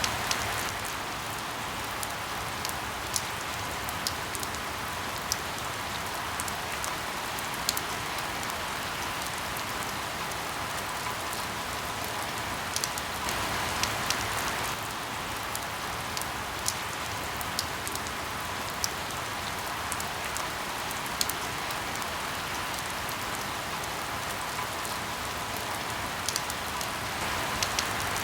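Steady rain falling, with scattered sharp drips of single drops, swelling briefly a little louder about halfway through.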